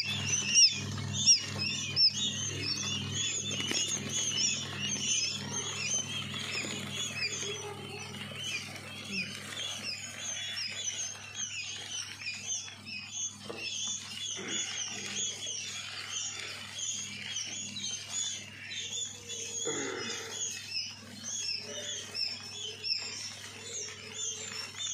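A brood of quail chicks peeping constantly, a dense chorus of short high chirps, over a low steady hum.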